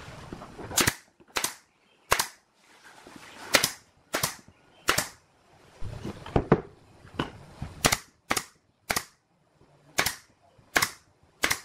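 Pneumatic brad nailer firing nails into pine boards: about a dozen sharp shots, unevenly spaced, roughly one a second.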